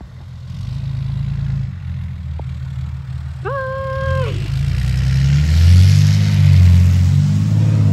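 Pickup truck engine running and revving as the truck drives across snow, louder from about five seconds in. One short horn honk about three and a half seconds in.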